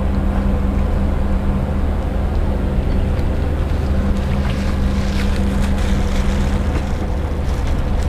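A boat engine running steadily: a low, even hum over a rushing noise.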